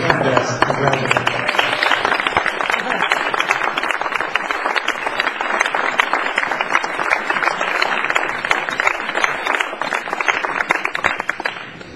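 Audience applauding, dense steady clapping that dies away just before the end.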